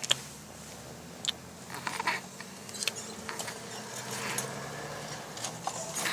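A person snoring while asleep, with a low buzz and noisy breathing swells, along with a few short clicks.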